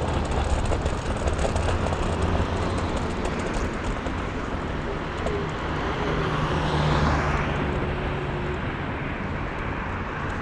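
Wind rushing on the microphone and road noise from a ride on an electric scooter along a city street, with traffic going by. A swell of passing-car noise comes about seven seconds in.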